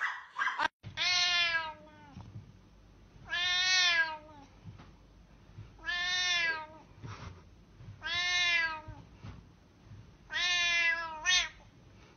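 Domestic cat meowing over and over: five long, drawn-out meows about two and a half seconds apart, each rising and falling in pitch, with a short extra meow right after the last.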